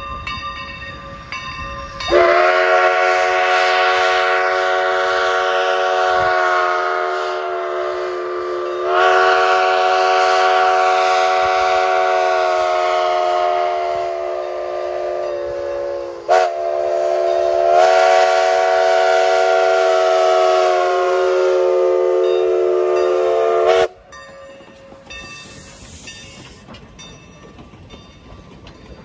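Steam locomotive No. 28's whistle blowing three long blasts that run almost together, starting about two seconds in and cutting off abruptly a little before the end. Then the train cars roll past more quietly.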